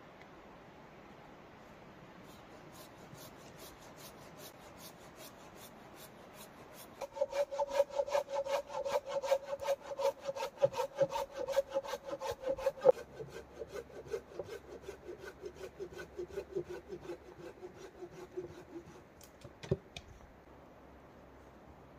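Wood being sawn by hand in quick, even strokes, faint at first and much louder from about a third of the way in. The blade rings at a steady pitch that drops partway through and slides lower until the strokes stop, followed by a single knock near the end.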